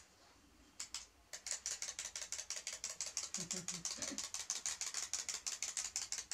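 Clockwork mechanism of a wind-up toy chick running: a rapid, even clicking, about eight clicks a second, that starts about a second and a half in after a couple of single clicks.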